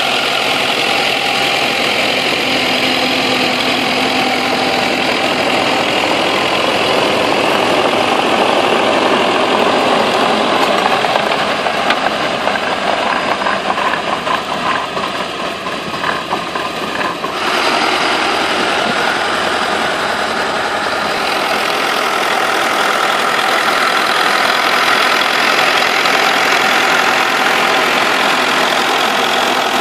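Turbocharged T-40 tractor's air-cooled diesel engine running steadily while it drives a rear-mounted rotary tiller through soil. The sound dips briefly a little past the middle, then comes back.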